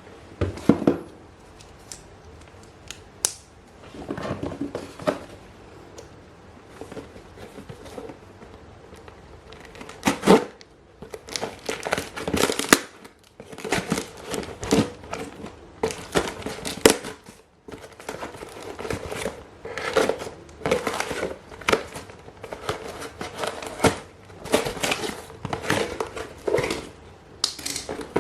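Unboxing a Google Pixel 4: packaging crinkling and tearing, with sharp handling clicks, in irregular bursts that grow busier about a third of the way in.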